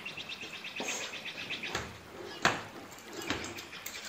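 A rapid, high chirping trill for about a second and a half, then a few sharp knocks, the loudest about halfway through.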